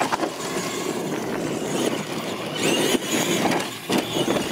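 Radio-controlled monster trucks racing on dirt: a dense whirr of motors, gearboxes and tyres, with sharp knocks as the trucks hit the ramps and land, one right at the start and more around three to four seconds in.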